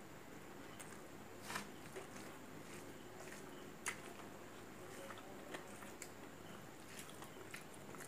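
Close-up eating sounds: chewing and wet mouth clicks, with scattered sharp clicks. The loudest clicks come about one and a half and four seconds in.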